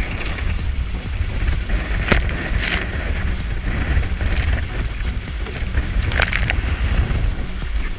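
Wind rumbling on the microphone aboard a Weta trimaran under sail, with water rushing along the hulls and four short splashes.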